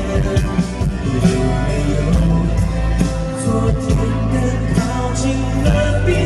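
A Mandarin pop song performed live through a concert PA: band accompaniment over a steady bass, with a male singer's voice on the microphone.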